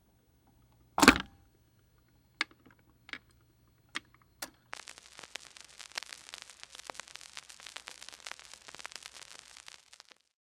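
Turntable record playback noise: a loud click about a second in and a few separate sharp pops, then from about halfway a dense run of vinyl crackle and hiss from the stylus in the groove, stopping shortly before the end. A faint low hum lies under the first half.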